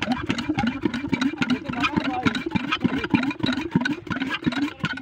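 Small Chinese single-cylinder diesel engine running a well water pump, a steady rhythmic chugging with a sharp knock on each beat, which cuts off abruptly at the very end.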